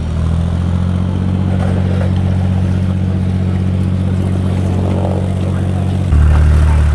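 Narrowboat's inboard engine running steadily with a low, even throb, growing louder and deeper about six seconds in as it is opened up.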